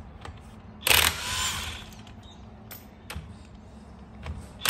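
Brushless half-inch DeWalt cordless impact wrench hammering on the loader's drive-sprocket bolts, undoing them so the sprocket can be swapped to the other side. A short burst about a second in and another starting near the end, with light clicks between.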